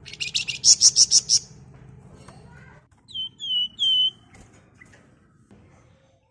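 Wergan Jawa (minivet) birds calling: a fast run of about seven sharp high chirps, then three clear down-slurred whistles about three seconds in, over a low steady hum.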